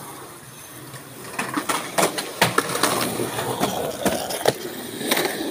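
Skateboard wheels rolling over concrete, with a run of sharp clacks and knocks of boards that starts a little over a second in.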